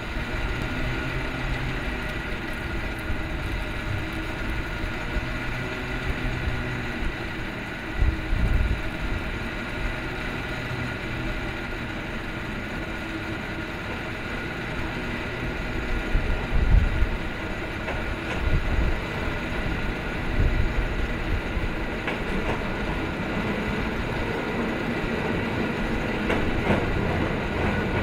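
Cable car running on its street track, with a steady rumble and clatter and a few faint steady tones from the moving cable and running gear. It grows louder near the end as the car draws close, with a few short low thumps along the way.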